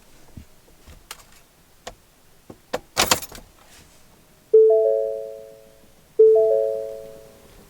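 A few light clicks and a short clatter, then the 2018 Ford F-150's three-note warning chime sounding twice, each chime fading out, about 1.7 s apart.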